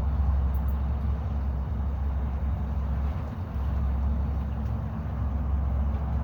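Boat motor running steadily at low trolling speed, an even low hum.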